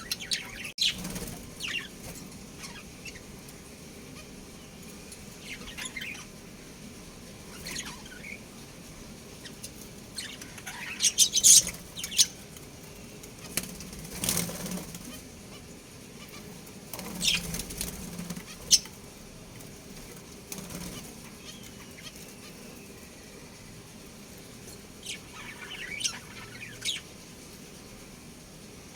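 Budgerigars chirping in short, scattered calls, with bursts of wing flapping in between.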